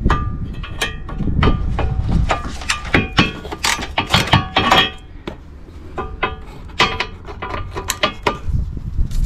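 Hand ratchet and socket extension undoing a bolt on a car's front panel mounting: a run of sharp metallic clicks and clinks, some ringing briefly, with a quieter gap about five seconds in.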